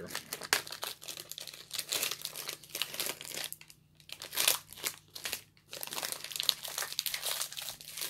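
Snack-bar wrapper crinkling in irregular bursts as it is torn open and peeled back from a wafer bar, with two brief pauses in the middle.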